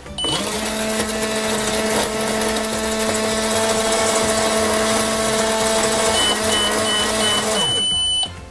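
Magic microwave running: a motor hum spins up, holds steady with a whirring hiss for about seven seconds, then winds down and stops. A string of short high beeps sounds near the end.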